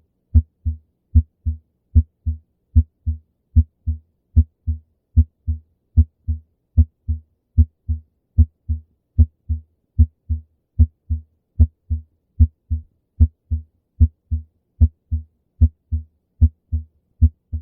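Heart heard through a stethoscope: the first and second heart sounds, a louder thud followed a fraction of a second later by a softer one, repeating at about 75 beats a minute.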